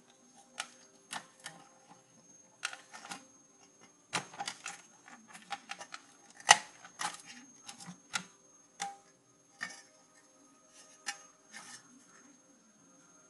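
Irregular clicks, taps and clatter of an ASUS CD-ROM drive's sheet-metal cover and plastic parts being handled and taken apart by hand, with one sharper knock about six and a half seconds in.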